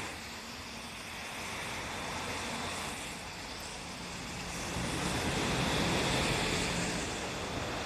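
Diesel railcar engine idling steadily at a station stop, a low even hum under a hiss of background noise.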